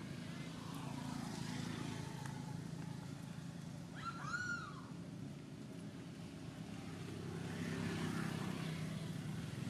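Steady low engine drone of motor traffic, growing louder near the end, with one short high call that rises and falls about four seconds in.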